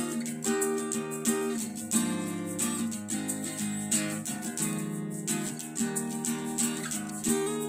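Acoustic guitar strummed in a steady rhythm, the chords changing every second or so.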